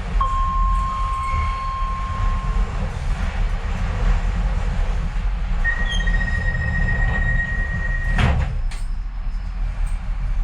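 Docklands Light Railway train running, with a steady low rumble. Two stretches of steady high-pitched wheel squeal: one near the start, and a higher one lasting about two seconds later on. A single sharp clunk comes about eight seconds in.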